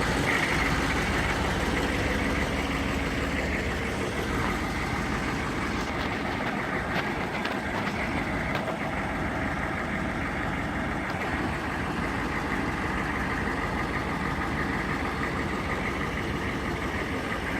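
GM 6.5-litre V8 diesel engine idling steadily.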